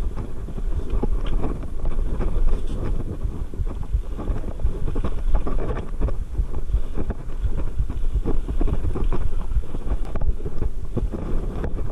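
Mountain bike riding over a rocky dirt singletrack: tyres rolling over dirt and stones with many small knocks and rattles from the bike, over a steady low rumble of wind on the microphone.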